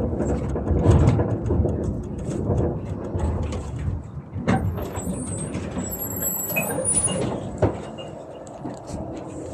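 Tram standing at a stop, heard from the driver's cab: a steady low hum from the tram's onboard equipment that dies away about four seconds in, with scattered clicks and a faint high whine.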